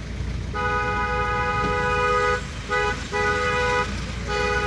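A vehicle horn honking: one long blast of about two seconds, then three shorter blasts, over the steady low hum of a vehicle moving slowly.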